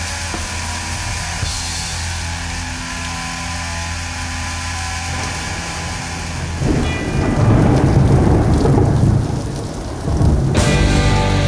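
Recorded rain and thunder on a music soundtrack, over a held musical drone. A loud thunder rumble swells about seven seconds in and fades, and band music with guitar comes in near the end.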